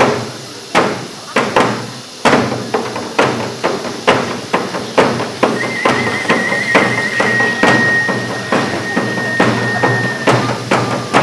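Live pascola dance music: drums struck in a steady beat. About halfway through, a flute comes in with a short trill and then holds one long high note, with a brief lower note near the end.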